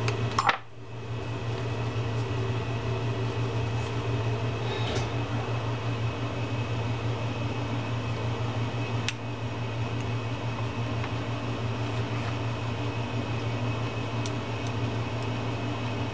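Steady low hum runs throughout. Over it come a sharp click about half a second in and a few faint ticks of a small screwdriver and metal parts as screws are turned into the fishing reel's side plate.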